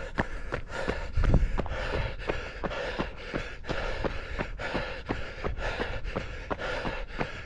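A runner's footsteps on a country lane, about three strides a second at a steady pace, with the runner's hard breathing between them. A brief low rumble a little over a second in is the loudest moment.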